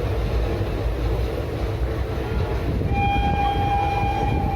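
Train running with a steady low rumble; about three seconds in, a train horn sounds one steady held note that carries on to the end.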